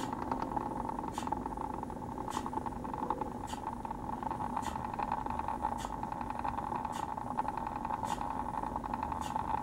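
Small motorized display turntable running, a steady motor hum with a short click repeating about once a second.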